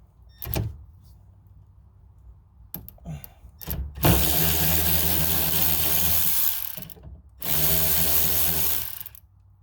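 A power drill runs in two bursts of about three and two seconds, loosening the 10 mm nuts on a window regulator, after a few short clicks as the tool is set on the nut.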